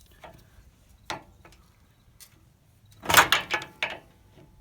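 Sharp metallic clicks from a 22 mm socket wrench turning a camber bolt. A few single clicks come first, then a quick, loud cluster of clicks and clanks about three seconds in.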